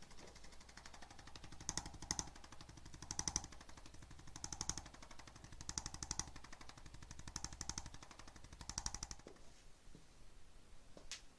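A handheld chiropractic percussion instrument rattling with rapid pulses. It swells about seven times as it is pressed over the body and stops about nine seconds in. A single click follows near the end.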